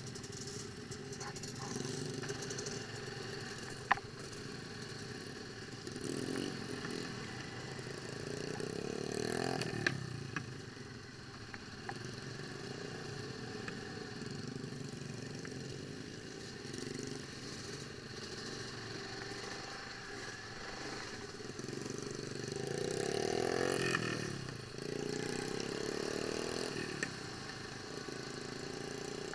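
ATV engine running with several revs that rise in pitch and level, the strongest about a third of the way in and again past three quarters, with a few sharp knocks.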